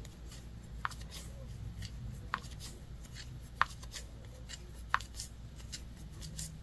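Wooden 7 mm knitting needles clicking together four times, about once every second and a half, over a soft rustle of yarn and hands as knit stitches are worked.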